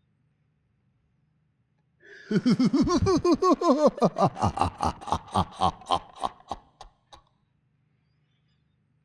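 A man's evil clown laugh: a rapid run of 'ha-ha-ha' pulses, about four a second, starting about two seconds in and lasting about five seconds. The pulses bend down in pitch and grow weaker toward the end.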